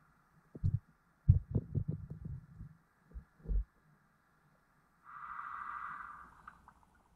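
Muffled underwater sound picked up by a submerged camera: a run of dull low thumps and knocks lasting about three seconds, then a steady muffled whir for about a second and a half near the end.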